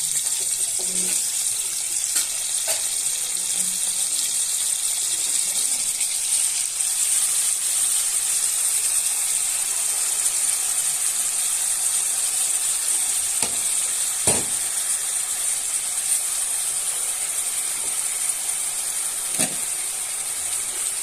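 Seasoned beef steaks frying in a pan: a steady high sizzle with a few sharp pops scattered through.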